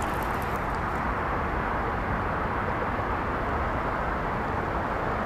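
Steady, even rush of distant city traffic noise, with no distinct events standing out.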